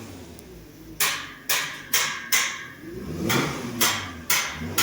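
Eight sharp knocks in two groups of four, about two a second, with a short pause between the groups.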